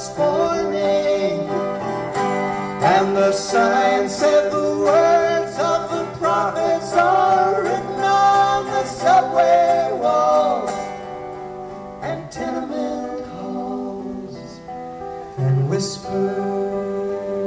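Live band music with acoustic guitar leading an instrumental passage, no words sung. The passage turns softer for a few seconds past the middle, then swells again near the end.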